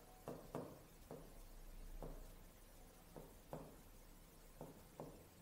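Chalk writing on a blackboard: a few faint, irregularly spaced taps and strokes.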